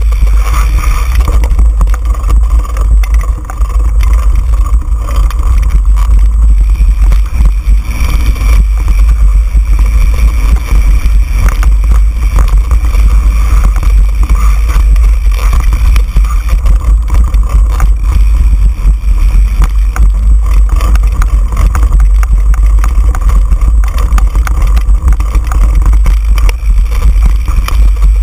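Mountain bike riding over a rough dirt singletrack, heard through a camera mounted on the bike: wind buffeting the microphone with a heavy low rumble, and constant rattles and knocks as the bike jolts over the trail.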